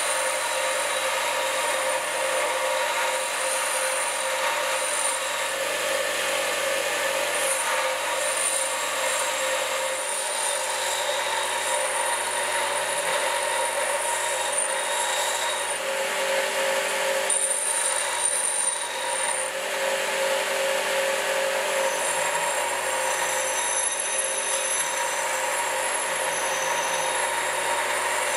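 Einhell bench grinder running while a rusty hammer head is pressed against its grinding wheel, grinding off rust and metal. A steady grinding noise over the motor's steady whine.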